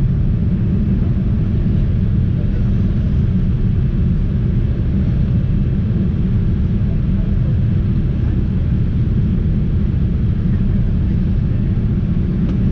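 Steady low rumble of a Boeing 787-8 airliner's engines and airflow, heard from inside the passenger cabin.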